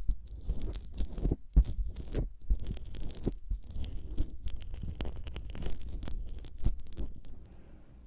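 Close crackling and scratching in a microphone's ear, ASMR ear-treatment sounds as ear drops are worked into the ear canal. Dense small clicks and rubbing, stopping about seven seconds in.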